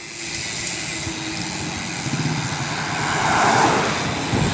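Steady street traffic noise heard while riding, with a motor vehicle passing and swelling louder about three seconds in.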